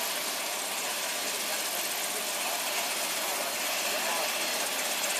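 Steady racetrack din: engines idling under a murmur of distant voices, with no sudden sounds.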